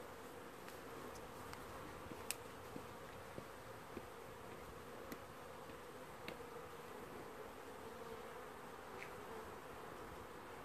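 Swarm of honeybees buzzing in a steady hum in front of the hive entrance as young bees make orientation flights, with a few faint sharp ticks.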